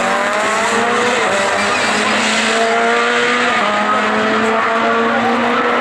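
Rallycross cars racing at full throttle: several engines revving up through the gears, each pitch climbing and then dropping back at a gear change, over a continuous layer of engine and tyre noise.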